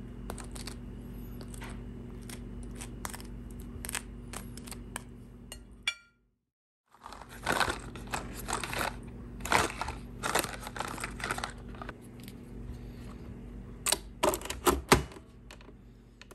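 Small kitchen handling sounds over a steady low hum: a metal spoon scraping and tapping as pesto is spread on toast. After a brief drop to silence, a cardboard coffee-capsule box rustles as it is handled, with a few sharp clicks near the end.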